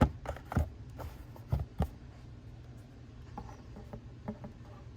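Handling noise from trading cards and their packaging: about five sharp knocks and taps in the first two seconds, then a few lighter taps.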